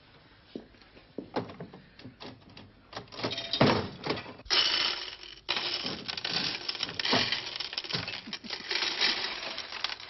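A lever-operated slot machine clicking as it is worked, then a long metallic clatter that starts about three seconds in, like a stream of coins spilling into its payout tray.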